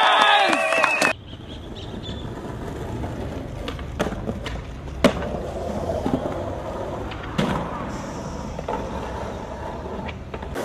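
Skateboard tricks on pavement: a few sharp clacks of the board, one much louder than the rest about five seconds in, and the board sliding along a concrete ledge, over a low steady traffic rumble. It opens with a crowd cheering and shouting that cuts off about a second in.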